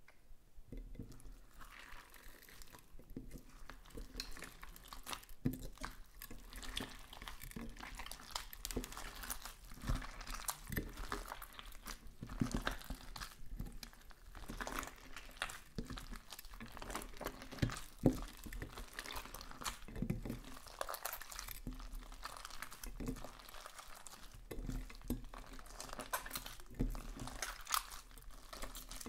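Hands squeezing and kneading green slime mixed with beads and foam chunks: a steady run of small crackles, pops and squishes.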